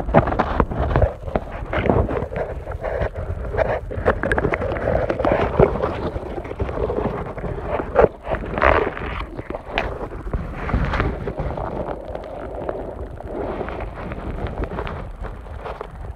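Muffled water noise picked up by a phone microphone held under a pond's surface, shifting irregularly as the phone is moved through the water. A few sharp knocks come from handling, most clearly in the second half.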